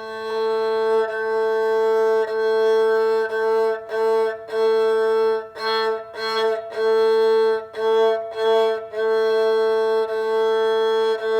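Kamancheh's open A string bowed on one steady note, in a run of long and short push-and-pull bow strokes with a brief break at each change of bow.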